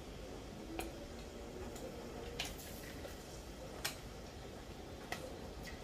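A pot of oils heating on an electric hob: four faint, sharp ticks about every second and a half over a low steady background.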